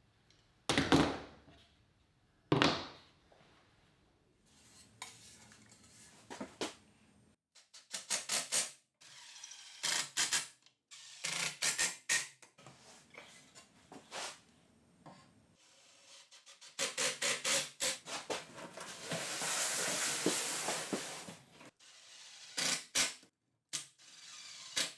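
Cordless drill driving pocket-hole screws into wood in several short runs, the longest about two thirds of the way through. Two sharp knocks come about one and two and a half seconds in.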